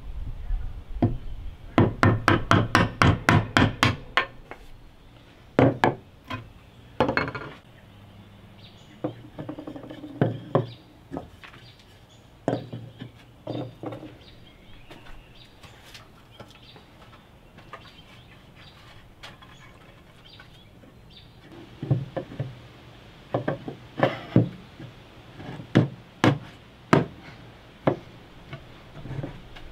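Hardwood parts and hand tools knocking on a workbench. Near the start comes a fast run of sharp taps, about eight a second for two seconds, while a chisel works a notch. After that come scattered single knocks and short clusters as the notched pieces are set down and fitted together.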